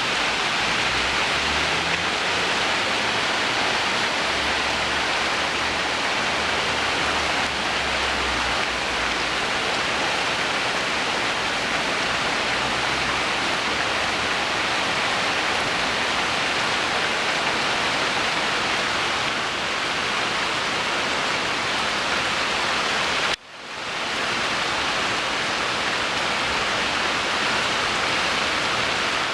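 Hard rain falling steadily, a dense even hiss, with a low rumble under it for the first several seconds. About two-thirds of the way through, the sound cuts out for a moment and swells back in.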